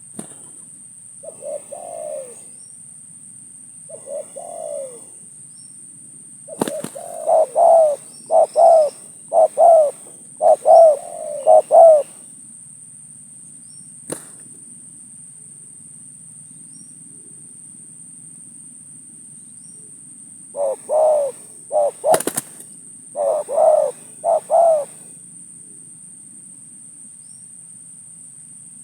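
Spotted doves cooing: a few single coos, then two runs of quick, rolling coos with a long pause between them. A few sharp clicks fall among them.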